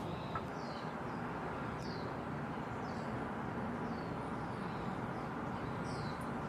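Outdoor ambience: a steady background hiss with a bird repeating short, high, falling chirps every second or so.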